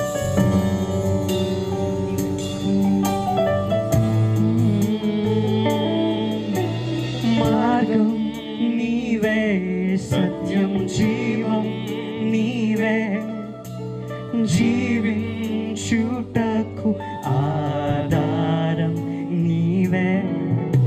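Live band playing a worship song: held keyboard chords with drum kit and electric guitar, and a male voice singing over it from about eight seconds in.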